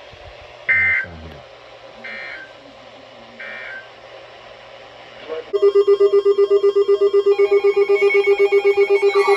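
Emergency Alert System header tones: three short electronic data bursts about a second and a half apart. About five and a half seconds in, a loud, rapidly pulsing electronic alert tone starts, and a warbling tone joins it near the end. This is the start of a new alert broadcast.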